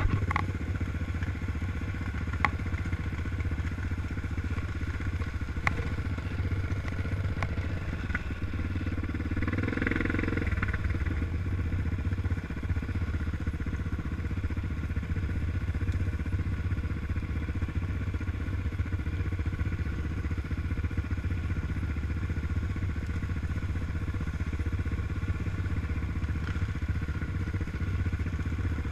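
Yamaha Raptor 700 ATV's single-cylinder four-stroke engine running steadily under way on a dirt trail, with a few sharp knocks in the first several seconds.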